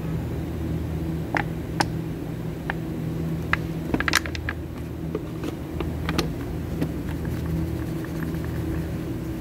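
Scattered light clicks and clinks of plastic and metal parts handled in a metal tray, with a quick crinkly cluster about four seconds in as a clear plastic bottle is handled, over a steady low hum.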